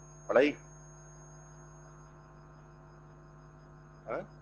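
Steady electrical mains hum, broken about half a second in by a short voice sound that sweeps up in pitch. A second, fainter short voice sound comes near the end.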